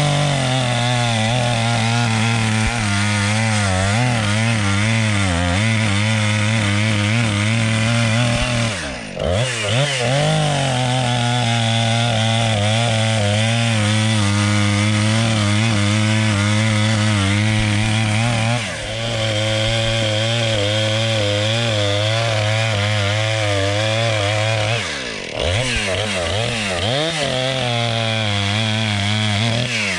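Redmax two-stroke chainsaw running hard while cutting through a birch log, easing off briefly about nine, nineteen and twenty-five seconds in between cuts. The saw is untuned, straight out of the factory, and sounds a little doggy.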